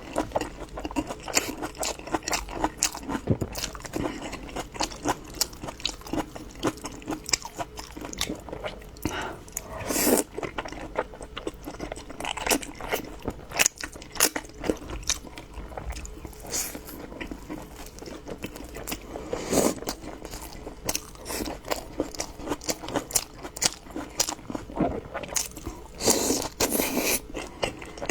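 A person chewing and biting crunchy food, with a dense run of irregular crunches and mouth sounds throughout.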